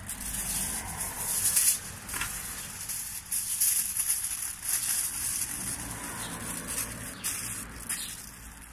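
Aluminium foil rustling and crinkling, torn from the roll and scrunched by hand around an apple, in irregular crackly spells.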